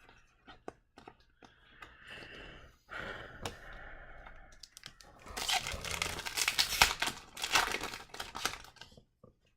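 Light taps and clicks of cards being handled, then about halfway through a few seconds of loud crinkling of plastic packaging.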